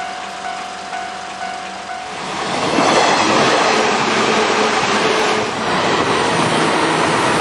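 A JR West electric commuter train running past a level crossing: the wheels rumble on the rails, quieter for the first two seconds, then louder again and steady from about two and a half seconds in.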